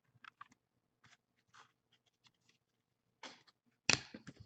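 Faint clicks and rustles of 15-16 Prizm basketball trading cards being handled and slid against one another, with a louder burst of rustling near the end.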